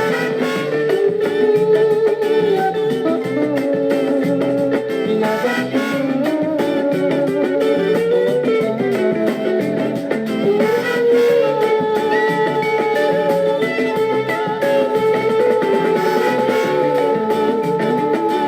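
Instrumental passage of a soul song: guitar over a steady beat, with long held notes.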